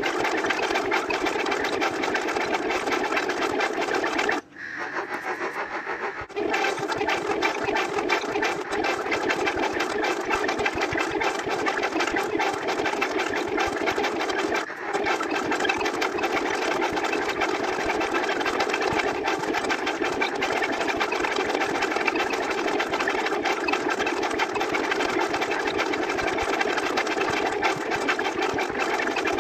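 A dense, rapid-fire stream of a repeated sound effect, blurring into a steady buzzing rattle. It drops out briefly about four and a half seconds in, then resumes.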